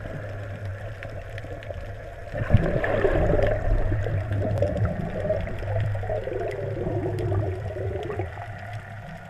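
Underwater bubbling and gurgling over a steady low hum. The bubbling grows louder about two and a half seconds in and eases off near the end.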